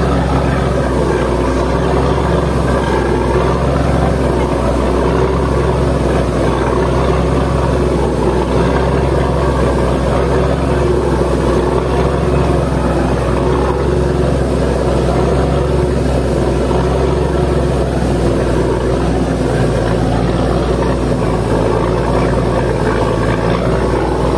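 A boat's engine running steadily under way, a constant low hum, with water rushing and churning along the hull.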